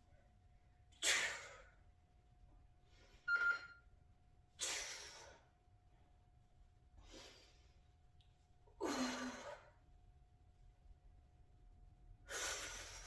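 A woman's forceful breaths out while lifting a kettlebell in front raises: six sharp, noisy exhales a second or two apart, each fading quickly. A faint steady hum lies underneath.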